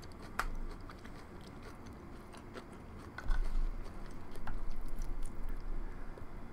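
Close-miked chewing of a mouthful of Korean corn cheese: sweet corn kernels in melted cheese. It makes small wet clicks and gets louder and more continuous from about halfway in.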